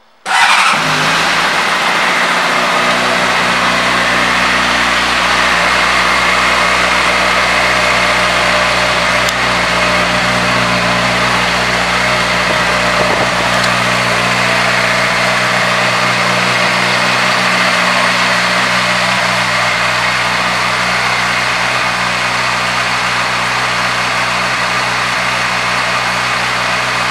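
2006 Honda CBR600RR's inline-four engine starting up right at the beginning, then idling steadily.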